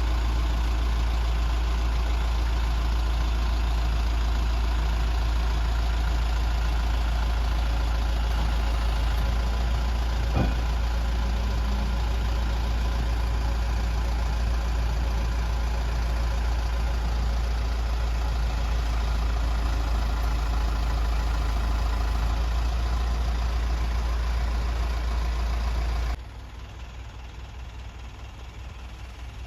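Asa Kaigan Railway DMV's engine and running noise heard from inside the vehicle: a steady low rumble. There is a single short click about ten seconds in, and the sound drops suddenly to a much quieter level near the end.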